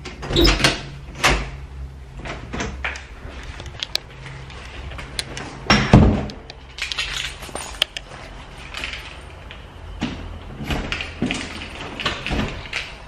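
Irregular knocks, bumps and rustling from moving about and handling things while carrying a handheld camera. The loudest thump comes about six seconds in, over a low steady hum.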